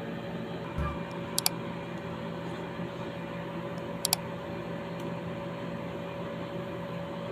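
Steady electrical hum, with two quick double clicks, one about a second and a half in and one about four seconds in, typical of a mouse-click sound effect on a like-and-subscribe overlay.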